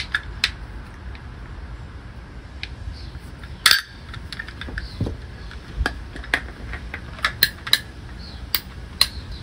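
Ratcheting PVC pipe cutter clicking irregularly as it is handled and its jaws are closed onto a PVC pipe, with one loud snap a little under four seconds in.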